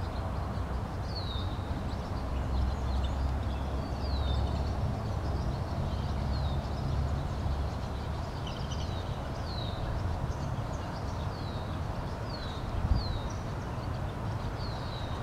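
A bird repeating a short, high chirp that slides downward, about once a second, over a steady low outdoor rumble. There is a single brief thump near the end.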